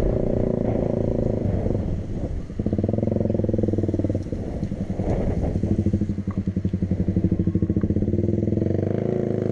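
A motor vehicle engine running, its speed and level rising and falling a couple of times.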